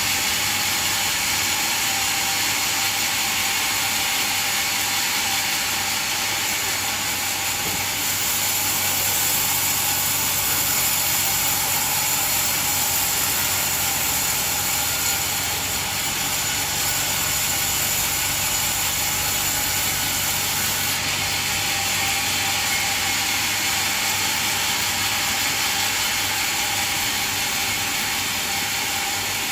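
Sawmill machine running steadily on coconut wood: a continuous mechanical noise with a low hum beneath. The higher part of the noise grows brighter about 8 seconds in and changes again about 21 seconds in.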